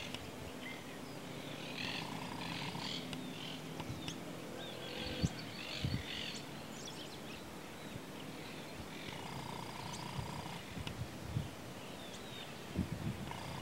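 Outdoor wetland ambience: assorted birds calling in the background with scattered chirps and short whistles, a faint steady hum that comes and goes, and a few short low thumps on the microphone, the loudest about five and six seconds in.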